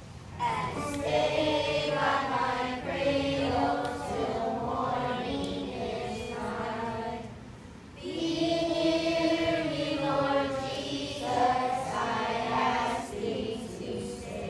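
Children's choir singing, two sung phrases with a short break for breath about eight seconds in.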